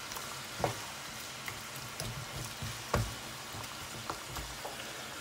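Mutton pieces sizzling in the juices they have released in a non-stick kadai, while a wooden spatula stirs them. A few sharp knocks of the spatula against the pan.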